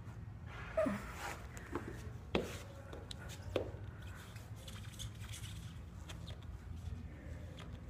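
Soft knocks, rustles and shuffling as a person shifts hands and weight on a rubber gym floor mat, with a few sharper knocks, the loudest about a second in, over a low steady hum.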